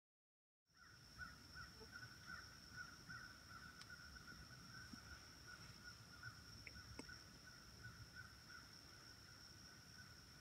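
Faint woodland ambience that begins abruptly under a second in: a steady high-pitched tone and a continuous pulsing chorus over a low rumble.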